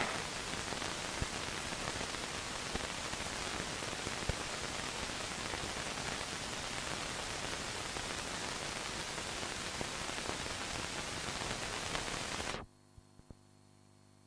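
Steady even hiss of an old film soundtrack, with no speech or music. It cuts off abruptly near the end, leaving near silence with a faint hum and a couple of small clicks.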